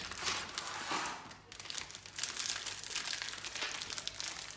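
Crinkling of the plastic wrapping around a microwave popcorn bag as it is taken out of its cardboard box and handled, an irregular crackle.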